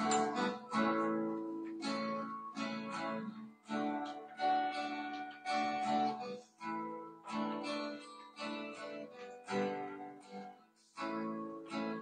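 Acoustic guitar strumming chords, one stroke after another, each chord ringing briefly.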